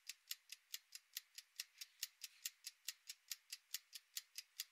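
Faint, rapid ticking of a timer sound effect, about five even ticks a second.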